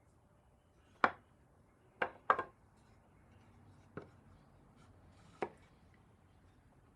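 Five short, sharp knocks at uneven intervals, the second and third close together, the fourth softest.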